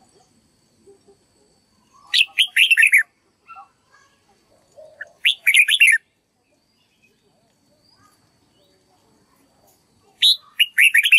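Red-whiskered bulbul singing: three short phrases of quick, falling notes, about two seconds in, at about five seconds, and again near the end.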